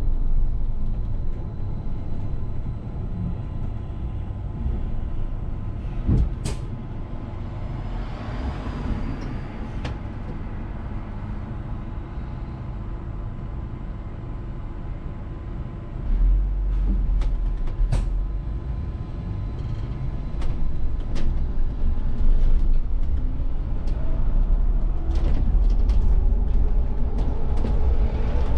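VDL city bus heard from inside the driver's cab while driving: a steady low rumble of the drivetrain and road noise with a few sharp clicks and knocks. It is quietest through the middle, grows louder about halfway through as the bus pulls away, and a rising whine comes in near the end as it picks up speed.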